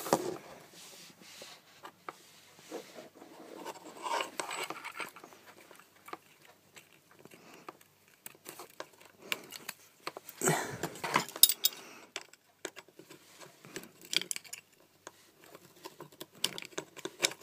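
Plastic housing and small parts of a failed 7W GU10 compact fluorescent lamp being handled and prised apart by hand, giving scattered clicks, scrapes and knocks. There are busier, louder spells about four seconds in and again around ten to eleven seconds in.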